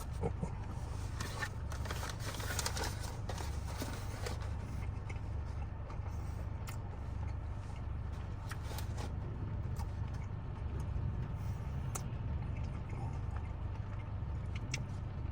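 Crunching and chewing of a bite of a crispy fried chicken sandwich, the crackly crunches mostly in the first few seconds and again briefly later, over a steady low rumble in a car cabin.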